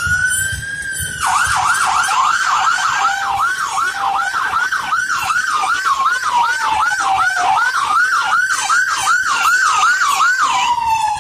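Fire truck siren: a wail at high pitch, then about a second in a fast yelp of roughly two to three sweeps a second with a slower rise and fall beneath it, switching back to a long falling wail near the end.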